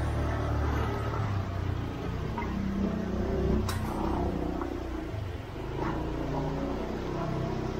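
Motor scooter engine running at low speed, a steady low rumble with a wavering pitch, and a single sharp click about three and a half seconds in.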